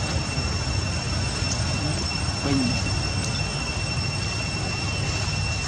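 Steady outdoor background: a constant high-pitched insect drone over a low rumble.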